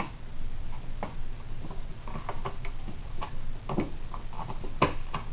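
Scattered small metallic clicks and taps as a 30-round detachable magazine is worked into the magazine well of a Yugoslav SKS rifle, with a few sharper clicks near the end as it seats.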